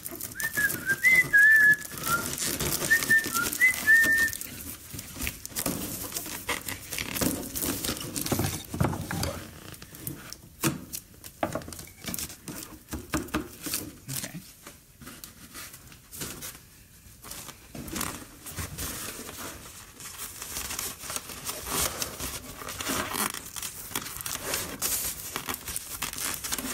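Latex and foil balloons being handled and tied together: a run of short rubbery squeaks from the latex in the first few seconds, then irregular crinkling and rustling of the foil balloon and latex.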